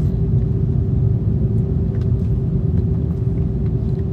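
Steady low rumble in the cabin of an Airbus A330-300 with Rolls-Royce Trent 700 engines as it taxis after landing, with a steady hum above it.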